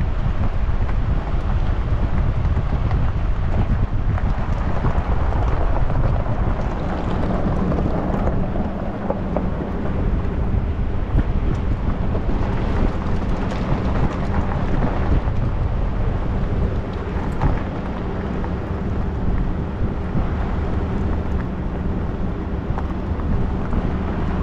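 Vehicle engine running steadily while riding, with a low hum, and wind buffeting the microphone.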